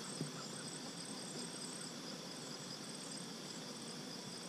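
Steady insect hum: honey bees droning around an open hive, with a high, even, pulsing cricket trill above it. One faint tap comes just after the start.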